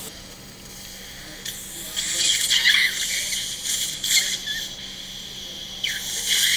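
Dental surgical suction tip drawing blood and saliva from the mouth during flap surgery: a high hissing noise that comes and goes, in one stretch from about a second and a half in and again near the end.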